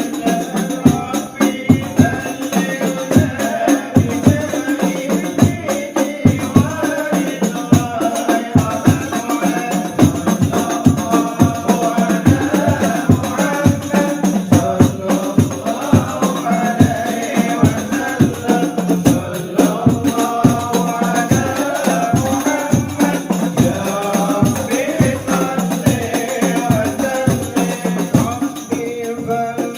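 A group of voices singing an Arabic devotional song in praise of the Prophet (sholawat), over hand-beaten frame drums with jingles keeping a fast, steady rhythm.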